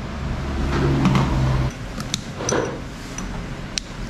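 Food-serving sounds of a soup ladle and bowl, then a few sharp clicks of kitchen scissors cutting meat in the bowl, over a steady low hum. A louder low drone with a steady pitch swells about half a second in and cuts off suddenly after about a second.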